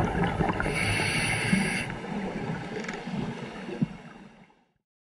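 Scuba diver breathing through a regulator, heard underwater: gurgling exhaled bubbles and a hiss of inhaling about a second in, with the sound fading out to silence near the end.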